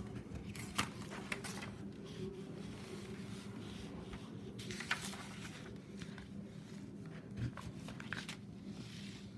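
Sheets of paper being slid and rearranged on a desk: scattered soft rustles and a few light taps over a steady low hum.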